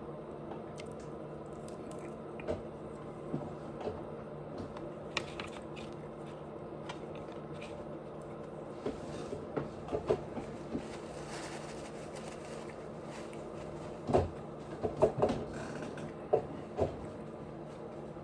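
Close-miked chewing and wet mouth smacks while eating sushi, with scattered soft clicks and a cluster of louder smacks near the end, over a steady low background hum.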